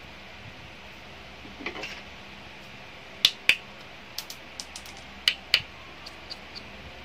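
Sharp small clicks and taps from laser-printer parts being handled and fitted during a repair: two pairs of louder clicks, each pair about a quarter second apart, with lighter ticks between and after them.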